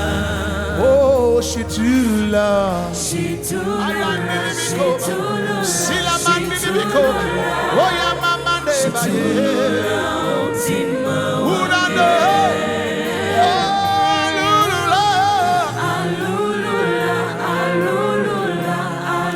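Live gospel worship music: a choir of voices singing over a band with bass and cymbals.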